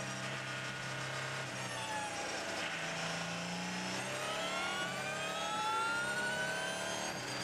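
Onboard sound of the Audi R18 e-tron quattro's V6 turbodiesel: engine pitch falls as the car slows over the first couple of seconds, then rises steadily as it accelerates again through the gears.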